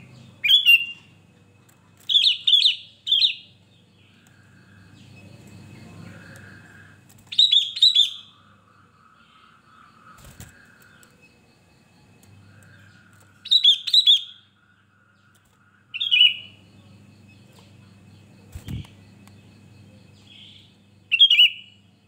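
Sooty-headed bulbul calling in short, bright chirping phrases, about six of them scattered through, each lasting under a second, some made of two or three quick notes. A couple of faint knocks fall between the calls.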